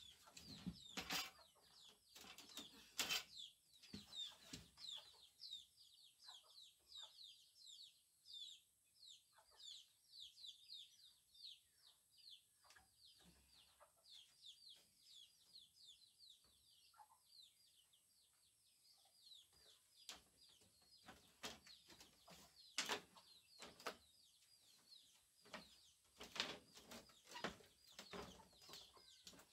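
A woven bamboo wall panel knocked and pushed into its wooden frame by hand: scattered sharp knocks and rattles, the loudest near the start and again in a cluster toward the end. Under them runs a steady stream of quick, high, falling chirps several times a second.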